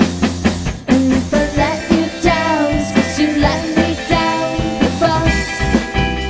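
Live band playing an upbeat rock song, drums keeping a steady beat under gliding melody lines.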